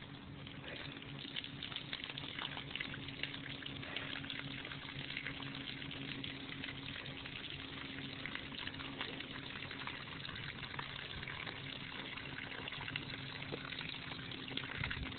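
Water spraying steadily from a hose nozzle onto a horse's wet coat, with a steady low hum underneath.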